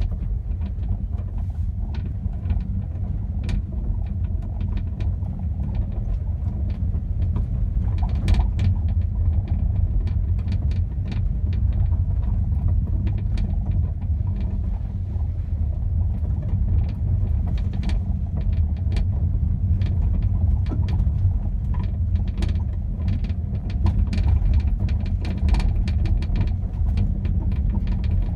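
Steady road rumble of a moving Volkswagen Polo with irregular clicks and knocks from the rear of the car: an unexplained rattle that persists after the door panel, shock absorber, wheel drum, boot and spare-wheel mounting have been checked.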